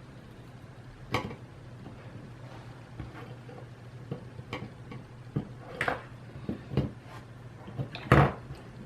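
Scattered small clicks and taps from handling a PS4 controller's circuit board and soldering tools while desoldering its thumbstick, about six in all with the loudest near the end, over a steady low hum.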